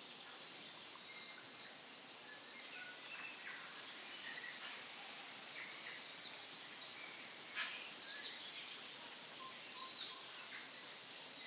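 Faint bird chirps scattered over a steady background hiss of outdoor ambience, with one sharp click about seven and a half seconds in.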